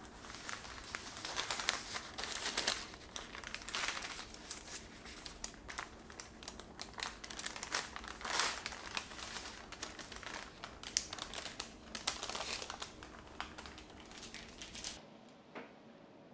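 Baking paper rustling and crinkling in irregular bursts as it is unrolled and peeled off a rolled sponge cake by hand, stopping near the end.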